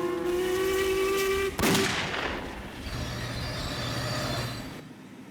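A steam train's whistle holding one tone, then a single gunshot about one and a half seconds in. After that comes a rushing hiss with a low hum underneath, fading near the end.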